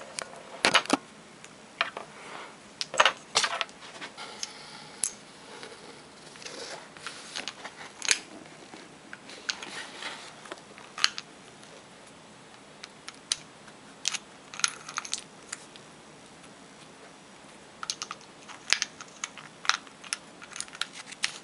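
Scattered small clicks and light taps of a pen-sized laser pointer being handled, its cap and battery section unscrewed and fitted back together.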